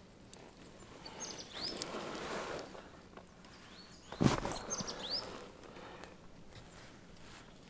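A small bird chirping a few times with short, high calls, over a scraping, rustling sound a little over a second in and one sharp knock about four seconds in.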